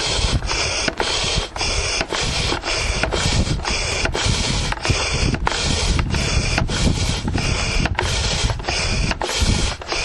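Steady rushing of air that pulses with a regular beat about twice a second. It is a mechanical sound, not breathing.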